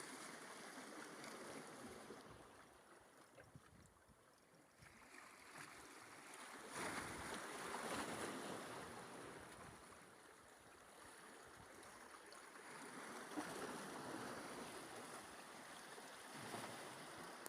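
Faint sea water sloshing and lapping, with some wind noise, swelling louder about seven seconds in and easing off a few seconds later.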